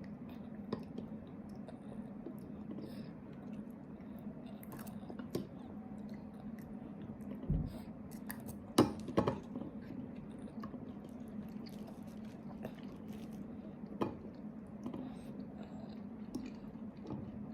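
A toddler chewing food at a meal, with a few sharp clicks and knocks scattered through, the loudest about nine seconds in, over a faint steady hum.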